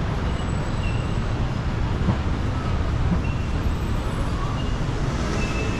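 Steady city street traffic noise, a continuous rumble of passing vehicles with a few faint short high squeaks.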